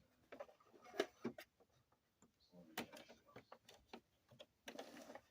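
Faint, scattered clicks and rustles of a Brother SQ9285 sewing machine being handled and set up, with a longer rustle near the end; the machine is not running.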